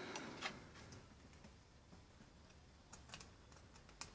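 Faint scattered clicks and light taps of a screwdriver and small steel parts as a screw is turned into a Colt 1851 revolver during reassembly: a couple just after the start, a few more about three seconds in and one near the end.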